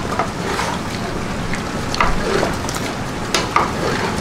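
Chopped vegetables sizzling and being stirred in hot oil in a large cooking pot, with a few sharp knocks against the pot about two and three and a half seconds in.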